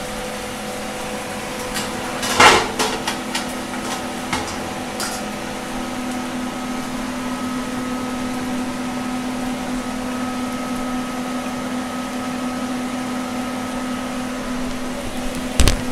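Metal cookware clatter on a frying pan, a sharp knock about two and a half seconds in with a few lighter clicks after it, and another knock near the end. Under it runs a steady hum with several held tones and an even sizzle of oil frying.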